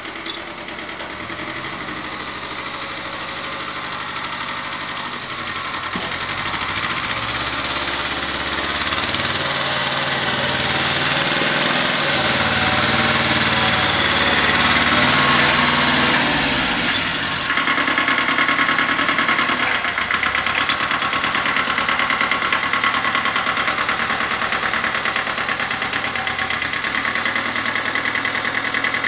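Satoh Beaver S370 compact tractor's engine running as the tractor comes closer, growing steadily louder. About seventeen seconds in the sound changes to a steady, higher-pitched drone that holds to the end.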